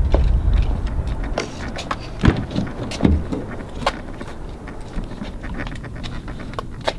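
Handling noise: a low rumble on the microphone that fades after about a second, with scattered light clicks and knocks.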